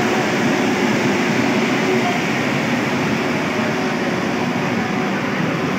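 JCB backhoe loader's diesel engine running steadily at close range.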